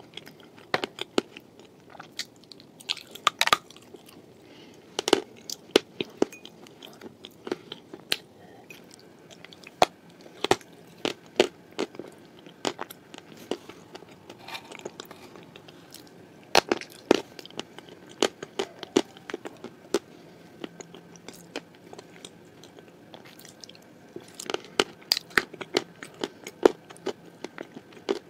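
Close-miked crunching and chewing of dry clay pieces coated in blue clay paste: sharp, irregular crunches, several in quick clusters, between quieter chewing.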